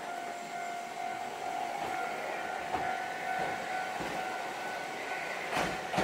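Hankai Tramway car 706 pulling away from the platform on its rails, with a steady electric whine and a background rumble. Its wheels clack over the track about three seconds in and again, louder, near the end.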